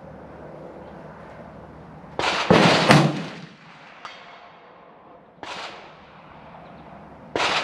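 Rifle shots: a loud sharp crack with a short echo about two seconds in, most likely the Ruger American Go Wild in .300 Win Mag being fired, then two quieter single shots about halfway and near the end.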